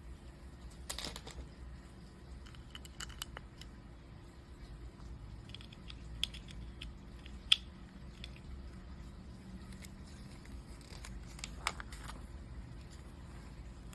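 LEGO plastic pieces being handled and pressed together: scattered small clicks and rustling, with one sharper click about halfway through.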